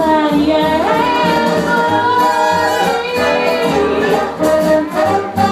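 Live song performance: a melody of long held notes over a pulsing bass line, with no lyrics made out.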